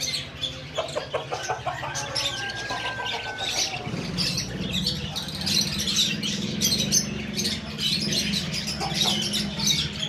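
Many small caged birds chirping and tweeting at once in a dense, continuous chatter. A steady low hum joins in about four seconds in.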